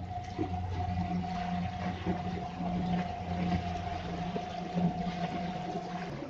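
Twin brushless electric motors of a small homemade plywood boat running at a steady cruising throttle, a held whine over a low hum, with water rushing and splashing along the hull.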